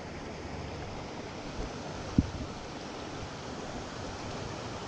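Shallow stream water running over rocks, a steady rushing wash, with a single brief low knock about two seconds in.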